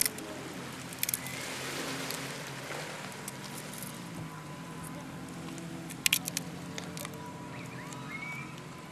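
Seashore background of surf and wind with a steady low hum, broken by a few sharp clicks; the loudest is a double click about six seconds in.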